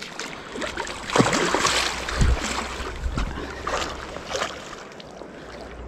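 Rushing river water with wind on the microphone, and scattered short knocks and scuffs, loudest about a second and a half in.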